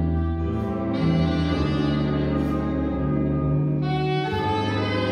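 Jazz big band, with saxophones, trumpets, trombones, piano and electric guitar, playing a slow ballad: sustained horn chords that lift into higher held notes about four seconds in. A soft high tap falls about every two seconds.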